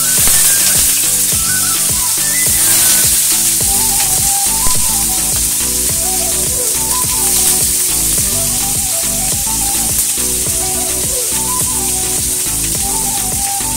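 Marinated chicken pieces sizzling in hot coconut oil in a frying pan as they are laid in one by one, with a steady hiss throughout. Background music plays underneath.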